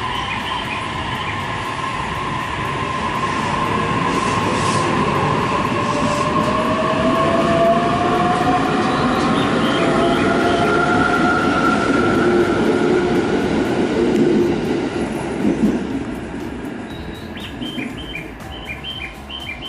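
JR E657 series limited-express electric train pulling out along the platform. Its motor whine rises in pitch as it gathers speed, over the rumble of its wheels, and it fades away near the end. Short, high bird-like chirps repeat at the start and again near the end.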